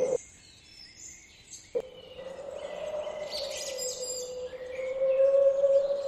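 Small birds chirping and twittering over a steady, slightly wavering hum. The hum cuts out for about a second and a half near the start and comes back with a click.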